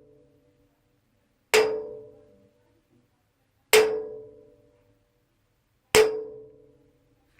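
Metal cupboard struck three times, about two seconds apart; each hit rings with a mid-pitched tone that dies away within about a second.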